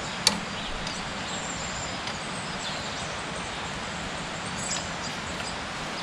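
Steady outdoor background noise with faint bird chirps, and a single sharp click just after the start.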